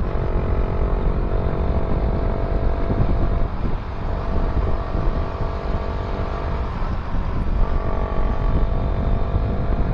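Suzuki Raider 150 Fi's engine running through an aftermarket ORBR exhaust pipe while riding, a steady note over a heavy low rumble. The pitch dips and climbs back twice, around four and seven seconds in.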